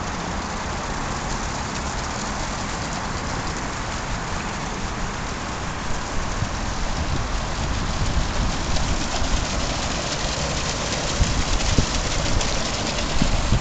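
Water pouring from a fountain spout into a shallow pool, a steady splashing rush that grows louder about halfway through.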